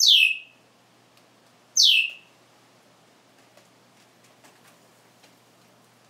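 African grey parrot giving two loud whistles, less than two seconds apart, each a quick slide down in pitch.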